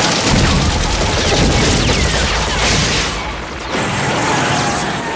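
Animated sound effect of sustained machine-gun fire, a long rapid volley of shots with bullets striking a car's metal body.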